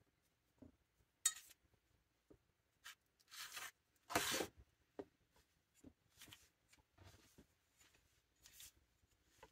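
Quiet handling sounds of chicken breasts being dredged in flour in a stainless steel bowl: soft rubbing and scraping, a sharp click just over a second in, and the loudest rustle about four seconds in as a piece is lifted from a clear plastic tray.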